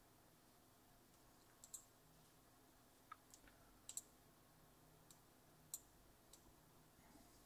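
Near silence broken by a handful of faint, sharp little clicks, some in quick pairs, from fingers handling a small anodised-aluminium box mod.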